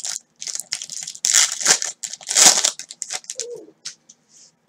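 Foil wrapper of a trading-card pack crinkling and tearing as gloved hands rip it open, with two louder rustles in the first three seconds, then quieter handling as the cards are slid out.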